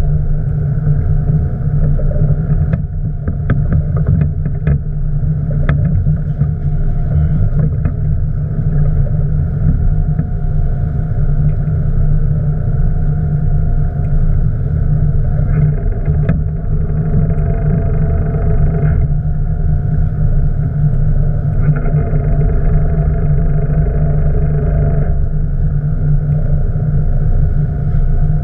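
Boat engine running steadily, a low drone, with a few sharp clicks about three to six seconds in.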